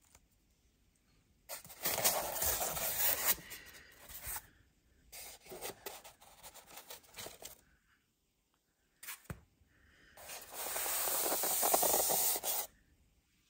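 Foam polystyrene packaging and the things inside it being handled: three stretches of scraping and rubbing, with a single sharp click in a pause past the middle.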